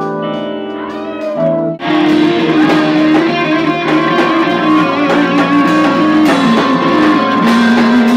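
Live funk band playing: held keyboard chords for the first couple of seconds, then the full band comes in loudly about two seconds in, with guitar, keyboard and saxophone driving a busy groove.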